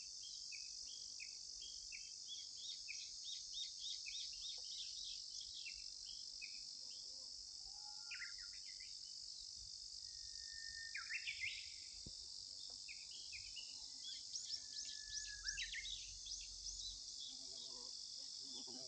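A steady, high-pitched insect chorus, with small birds calling over it in many short chirps and a few brief whistled notes. The chirping is busiest near the start and again about three-quarters of the way in.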